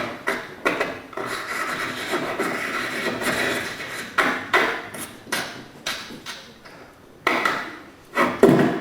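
Scratching, scribbling sound effect of writing on paper, in irregular rasping strokes with several short pauses.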